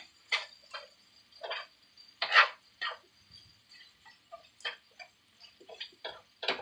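Spatula scraping and tapping in a skillet of browned ground beef: about a dozen short, irregular scrapes, the loudest about two and a half seconds in.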